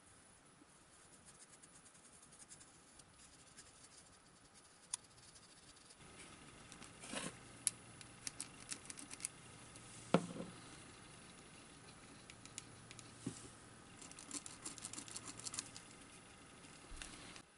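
Quiet workbench handling sounds: small clicks, taps and scratches as 9 g servos are held against a foam glider fuselage and worked around with a pen. One louder knock comes about ten seconds in, over a faint low hum.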